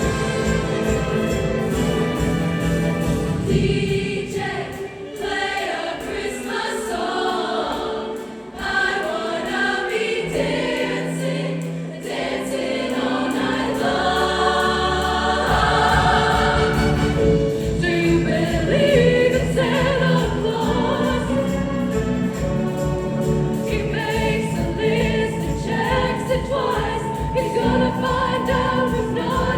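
Choir singing a Christmas pop song over a backing track with a steady dance beat; the beat drops away for several seconds partway through and then comes back in.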